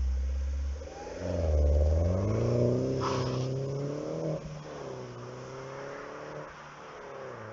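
Mini Cooper S R56's 1.6-litre turbocharged four-cylinder, on its stock exhaust, revving up: the pitch climbs for about two seconds, drops sharply about four seconds in, then holds lower as the sound fades.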